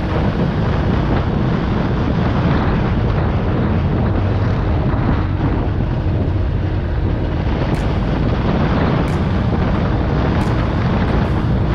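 Wind buffeting the microphone of a camera on a moving motorcycle, with engine and road noise beneath it, loud and steady.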